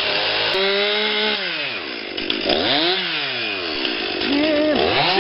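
Chainsaw engine revving, its pitch rising and falling several times: it climbs to a peak about three seconds in, drops away, and revs up again near the end.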